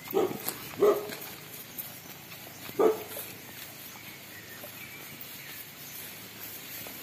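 Three short, loud animal calls, two close together and a third about two seconds later, over quiet farmyard background.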